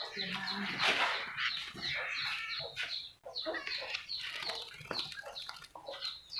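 Domestic fowl clucking and calling in a string of short, irregular calls.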